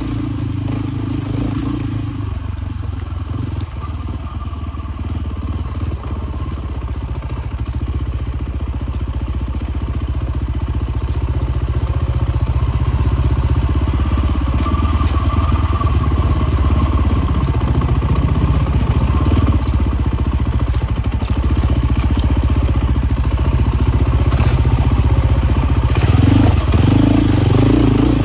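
Dual-sport motorcycle engine running under way along a rocky dirt trail, getting louder about a third of the way in, with scattered sharp clicks of stones and clatter.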